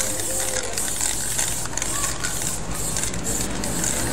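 Aerosol spray-paint can hissing as red letters are sprayed onto a wall, in strokes with several brief breaks between them.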